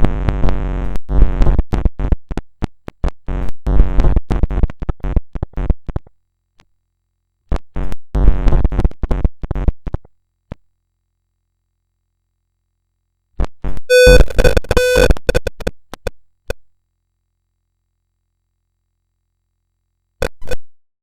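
Electronic tone sound effect, heavily stacked and distorted into a harsh glitchy buzz of clicks and steady tones. It comes in four bursts broken by dead silence, the last a short blip near the end.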